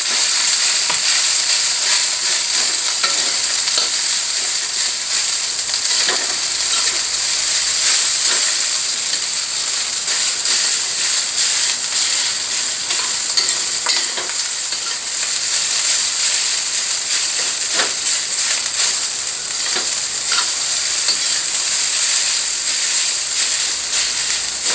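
Fried rice sizzling in hot oil in a very hot metal wok, stirred and turned with a metal spatula that scrapes and clicks against the pan every few seconds.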